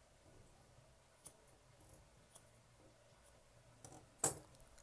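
A few faint snips of grooming shears cutting a Maltese's long coat, spaced a second or more apart, with a sharper, louder click near the end.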